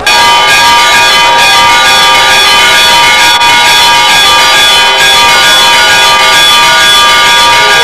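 Church bells ringing loudly and continuously, many overlapping tones, starting suddenly.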